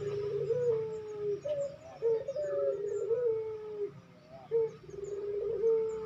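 Barbary dove (puter) cooing: a series of rolling coos, each short note leading into a long held note that sags slightly in pitch.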